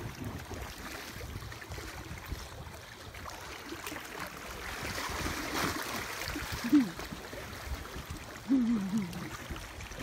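Sea water sloshing and splashing around a swimmer, a steady hiss of moving water. A person's voice gives short calls about seven seconds in and again near the end.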